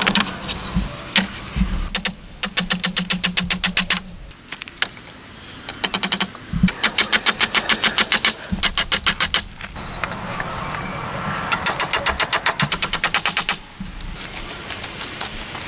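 Nails being hammered into wooden poles: four quick runs of sharp, evenly spaced blows, about eight a second, with short pauses between runs.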